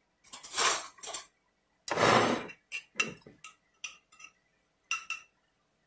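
Metal kitchen utensils clattering and clinking as they are handled: a few rattling rushes in the first half, the loudest about two seconds in, then a string of about eight short ringing clinks.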